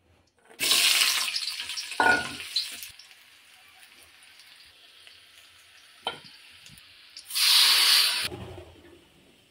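Food sizzling in hot oil in a cooking pan, in two loud bursts that each die down: the first about half a second in, the second near the end. Between them come a couple of sharp knocks of a utensil against the pan and a low steady sizzle.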